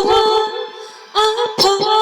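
A voice singing a slow ballad with backing music: a drawn-out sung note, a short dip about half a second in, then the singing picks up again just after a second in.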